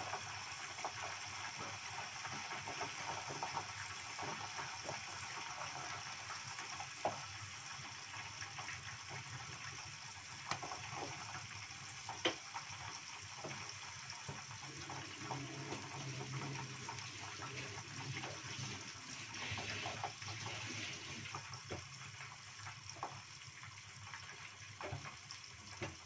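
Pigeon frying in hot oil in a lidded pot: a steady sizzling hiss with scattered crackles and pops.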